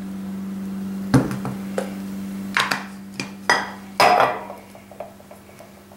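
Light metal clinks and knocks from handling the fuel tank and valve parts of a Coleman camp stove on a workbench. The loudest knock comes about four seconds in, as an aerosol spray can is set down. A steady low hum runs underneath and fades after the first half.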